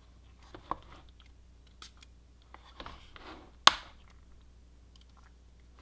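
Finger-pump spray bottle giving one short, sharp spritz about two-thirds of the way in, wetting the broken plastic edge with solvent adhesion promoter. Faint clicks and taps of handling come before it.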